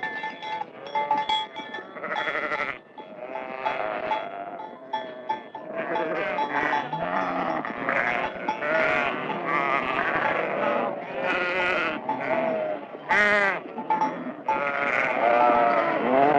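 Livestock calling over one another: many overlapping, wavering bleats in a dense, continuous chorus. A thin steady ringing like a bell sounds through the first two seconds.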